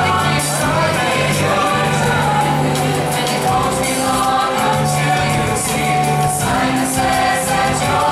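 High school show choir singing over musical accompaniment, with held bass notes under the voices.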